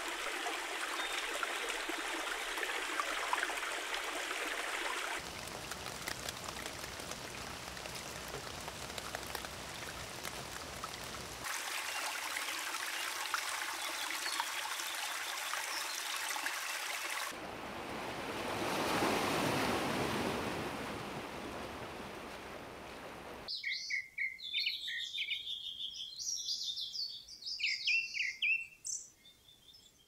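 Stream water flowing over rocks, in a series of short clips that cut abruptly from one to the next. About three-quarters of the way through it gives way to birds chirping over quiet.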